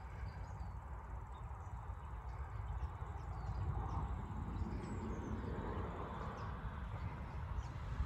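Outdoor background: a low, unsteady rumble with faint, scattered bird chirps over it.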